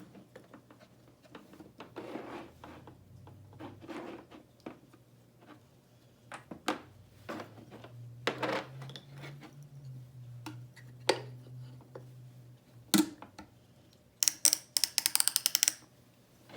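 Wooden toy microwave being handled: scattered knocks and clacks of wood, then, near the end, a rapid run of clicks as its turning dial is wound.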